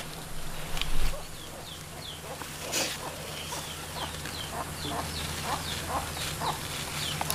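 Chickens calling: a run of short, high, falling peeps a few times a second mixed with lower clucks, and a sharp knock about three seconds in.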